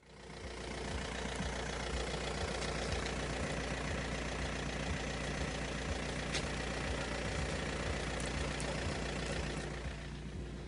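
A vehicle engine running steadily with a low hum and a faint light knocking, fading in at the start and easing off slightly near the end.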